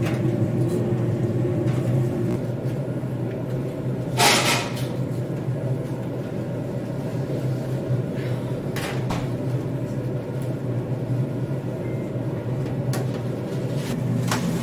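Steel tongs and wire fryer baskets clinking and clattering against metal over a steady low rumble, with one loud clatter about four seconds in and a few sharp clinks later.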